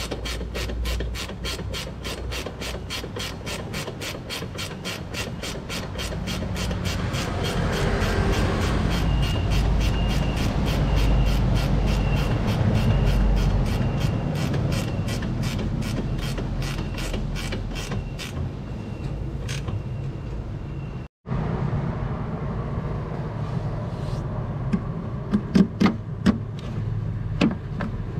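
A ratchet wrench clicking in rapid, even strokes, about four a second, for most of the first two-thirds. After a short break there are a few sharp metal knocks near the end.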